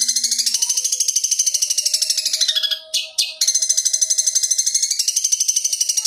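Long-tailed shrike (cendet) giving a rapid, high-pitched trill of about fifteen notes a second, in two long runs broken by a short pause with a couple of brief notes about three seconds in.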